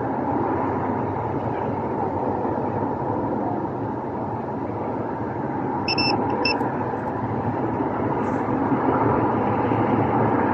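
Multimeter continuity tester beeping twice, short and high, about half a second apart, partway through: the wire being tested to the engine computer has continuity. A steady traffic-like hum runs under it.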